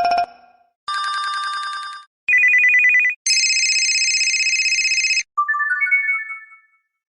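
HTC Desire S phone ringtones: a series of short electronic ring sounds. A chime, a quick two-note warble and a steady ring of about two seconds follow one another, then a rising run of notes, and the last second is silent.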